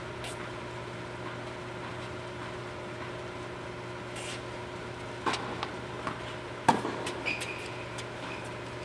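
Tennis ball being struck with rackets during an indoor doubles rally: a sharp hit about five seconds in and a louder one nearly two seconds later, followed by a few lighter ball bounces and a short squeak. A steady hum sits under it all.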